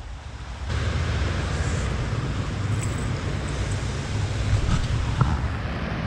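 Steady rushing of a small river's current over a shallow riffle, a broad hiss over a low rumble.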